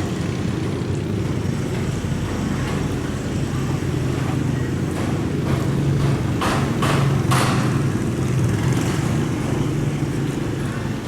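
Longtail boat engine running steadily at speed, with a few short sharper noises about two-thirds of the way through.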